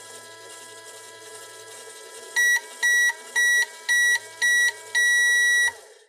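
Just Like Home toy microwave running with a steady electronic hum, then beeping five short times and once longer: the toy's end-of-cooking signal.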